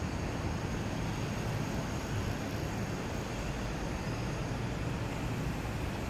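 Steady low outdoor rumble with no distinct events.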